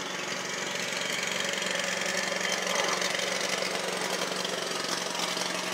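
Lawn mower engine running steadily, growing louder over the first couple of seconds as it passes close by.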